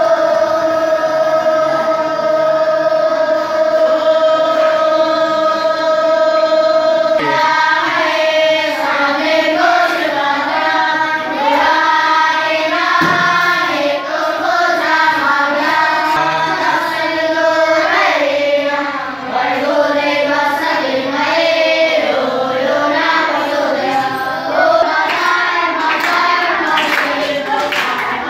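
A group of boys chanting in unison. One long held "Om" lasts until about seven seconds in, then a Sanskrit prayer mantra is chanted together.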